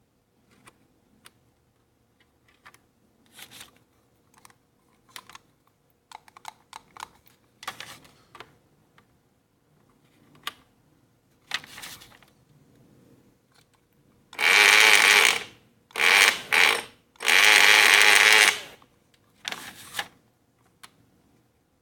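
Estrela sewing machine: light clicks and rattles of its mechanism being worked for a while, then the machine runs loudly in a few short bursts of about a second each, the last one briefest.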